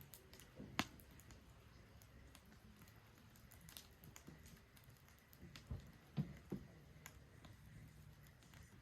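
Wood fire in a Solo Stove Ranger fire pit, quietly crackling. There is a sharp pop about a second in and a few more pops around six seconds in.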